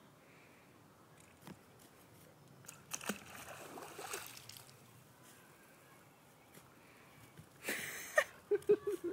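A husky puppy biting and pouncing at a spray of water, making splashy hissing bursts, the loudest near the end, followed by a few short yips.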